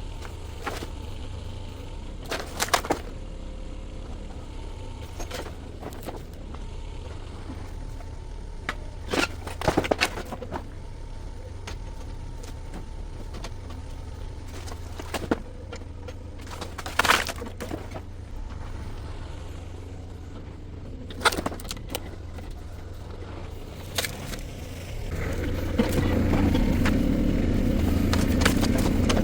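Shantui STE35SR mini excavator's diesel engine running steadily, with scattered sharp cracks and knocks of barn wood breaking under the machine. About 25 seconds in, the engine grows louder, as if working under load.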